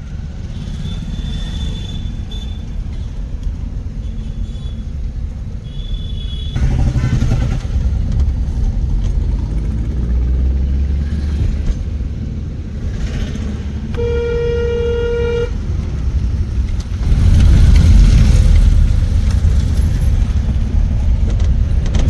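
Steady road and engine rumble inside a moving Maruti Suzuki Alto. A vehicle horn sounds once about two-thirds of the way through, held for about a second and a half. The rumble grows louder in the last few seconds.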